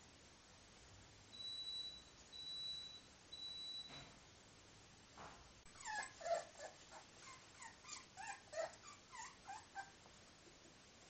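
Three steady, high beeps of under a second each, then about four seconds of short, high, sliding whimpers and squeaks from 24-day-old miniature bull terrier puppies.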